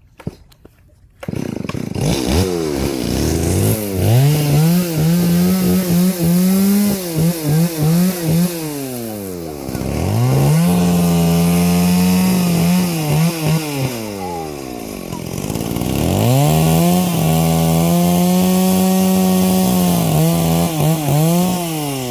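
A small petrol engine starts up about a second in and is revved three times. Each time it climbs to high speed, holds there with quick throttle dips, then drops back toward idle.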